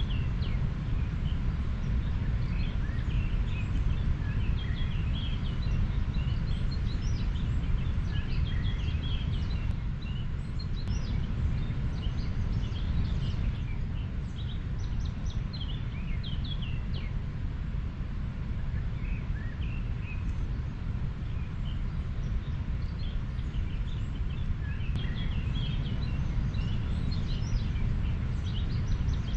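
Steady low rushing of a river, with small birds chirping on and off above it, fewer calls through the middle stretch.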